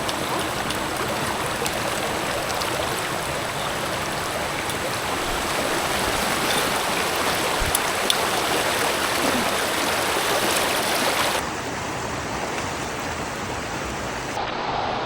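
Rushing stream water, a steady, even wash. Its character shifts slightly about eleven seconds in.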